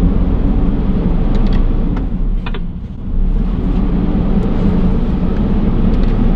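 Mercedes-Benz Unimog's 5.1-litre four-cylinder diesel heard from inside the cab as the truck drives off: a steady low drone that dips briefly about halfway and then picks up again, with a few light clicks.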